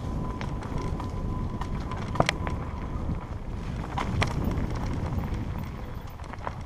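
Mountain bike rolling fast down a leaf-covered forest singletrack: a steady rumble of wind on the camera's microphone and rattle from the tyres and frame, broken by sharp knocks from bumps about two seconds in and twice around four seconds.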